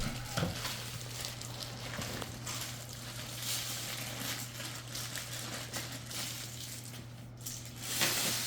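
Plastic wrapping crinkling and rustling as it is pulled off a new lawn mower part, in irregular handling noises that grow louder near the end.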